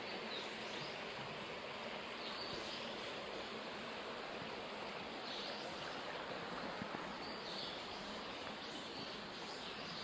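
Small, shallow stream running over gravel with a steady babbling hiss. Faint high chirps recur about every two seconds.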